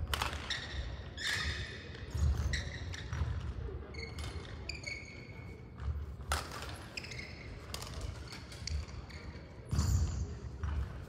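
Rubber-soled court shoes squeaking and thudding on a wooden sports-hall floor, with scattered sharp knocks, echoing in a large hall.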